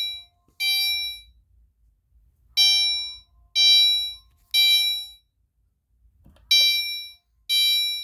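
Gentex fire alarm horn sounding the temporal-3 evacuation signal: loud, steady-pitched blasts in groups of three about a second apart, with a pause of about a second and a half between groups. It is really loud.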